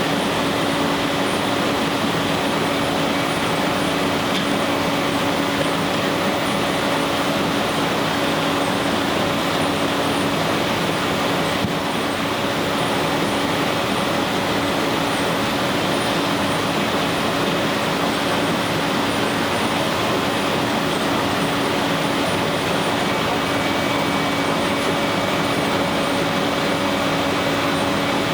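Sawmill machinery running steadily: an even, loud mechanical noise with a constant hum and no change of load.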